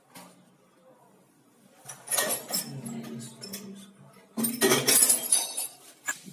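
Hard objects clinking and clattering in two bursts, the first about two seconds in and the second, louder one about four and a half seconds in.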